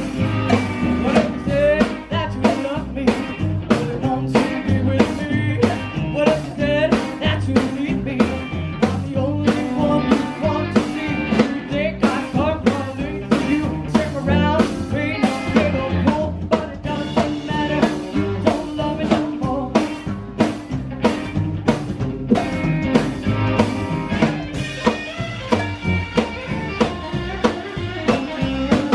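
Live rock-and-roll band playing: a woman singing over upright bass, electric guitar and a drum kit keeping a steady beat.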